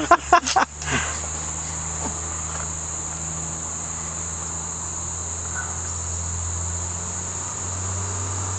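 Steady, high-pitched chorus of crickets, with a low steady hum beneath and a few short knocks in the first second.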